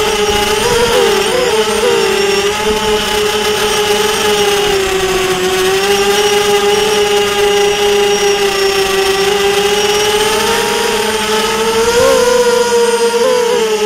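Small drone's electric motors and propellers whining steadily, heard from the onboard camera, with the pitch wavering as the throttle changes about a second in and again near the end.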